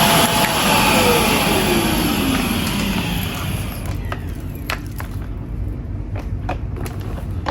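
Shark vacuum cleaner switched off: its motor whine falls in pitch and fades away over about three seconds, then a few light clicks and taps follow.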